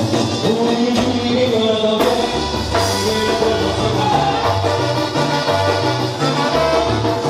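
Upbeat tierra caliente dance music from a band, with horns carrying the melody over a bass line that steps between notes in a steady dance beat.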